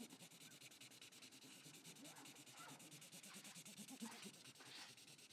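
Faint rubbing of a Sharpie marker on a paper target in short repeated strokes, colouring in a large aiming dot.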